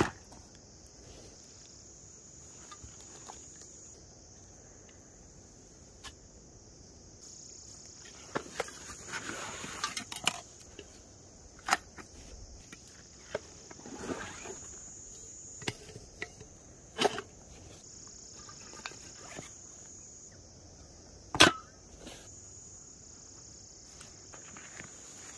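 Insects chirring steadily at a high pitch, with scattered rustles and clicks of camping gear being handled: pouches, a cardboard box and a backpack. The sharpest click comes near the end.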